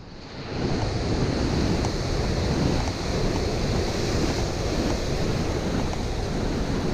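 Ocean waves breaking in the surf, a steady rush, with wind rumbling on the microphone.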